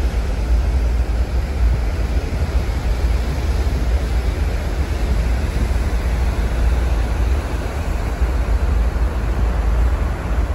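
Steady wind rumble on the microphone on the open deck of a ferry under way, over a rushing noise of sea and wake.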